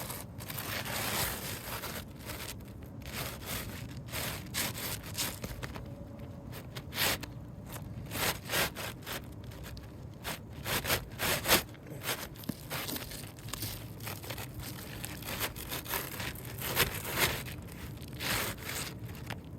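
An asphalt roof shingle scraping and rustling against the shingles and underlayment as it is pushed up under the courses above, with many irregular sharp scratches and knocks.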